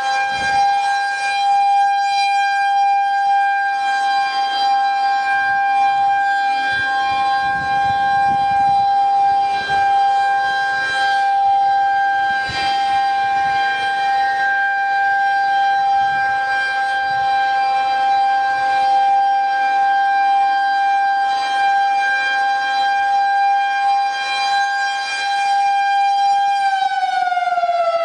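Federal Signal 2001-SRN rotating tornado siren sounding a steady, very high-pitched tone at full speed, then starting to wind down near the end, its pitch falling.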